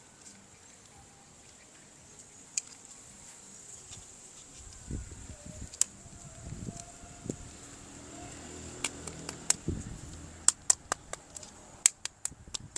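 Handling of plastic toys and packaging: scattered light knocks and rustles, then a quick run of sharp plastic clicks near the end, over a faint high steady whine.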